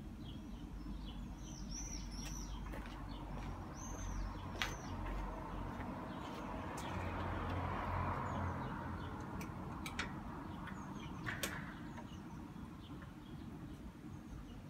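Small birds chirping over a low steady background rumble, with a few sharp clicks and a soft hiss that swells and fades around the middle.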